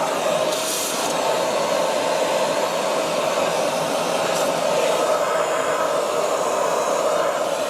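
Vacuum cleaner running steadily while sucking dust out of a refrigerator, with a brief higher hiss of air just under a second in and again about four seconds in.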